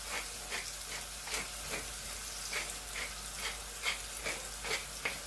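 Wooden pepper mill grinding black pepper in regular twists, about two or three crunches a second, over the steady sizzle of chicken cooking in a pan.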